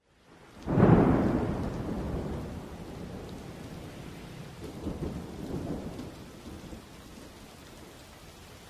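Thunder: a sudden clap about a second in that rolls away over several seconds, then a second, weaker rumble around five seconds in.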